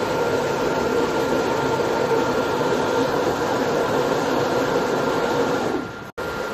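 Vertical glass washing machine running: a steady mechanical hum and hiss with a few steady tones. Near the end the sound drops, cuts out for an instant, then resumes a little quieter.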